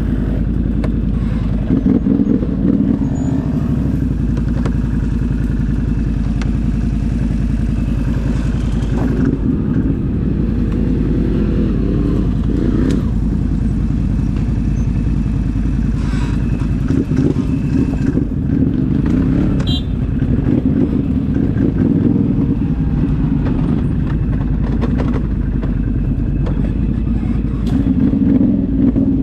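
ATV engine running while riding, its revs rising and falling in several surges.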